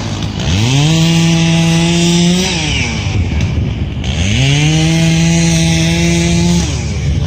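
Chainsaw throttled up to full speed twice, each time held steady for about two seconds and then dropped back to idle.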